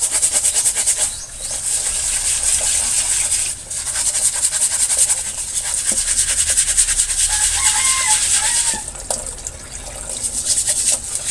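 A steel brush scrubbing built-up carbon off a gas stove burner cap under running tap water, in rapid rasping strokes that pause briefly a few times.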